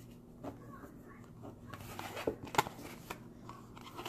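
Stretch Tarot cards handled in the hands: soft rustling with a few sharp clicks and taps of the card stock, the loudest about two and a half seconds in, over a faint steady hum.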